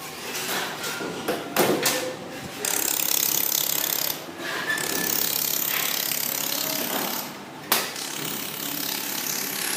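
Laser welding machine firing in two long runs of dense, fast rattling noise, broken off for about half a second near the end by a sharp click, with a few clicks before the first run starts.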